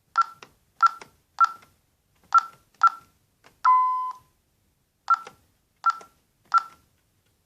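ADT 6160 alarm keypad beeping as its keys are pressed: a run of short, high key beeps, one longer, lower tone a little after three and a half seconds, then three more key beeps. This is typical of a user code being entered to disarm the system after a police panic alarm.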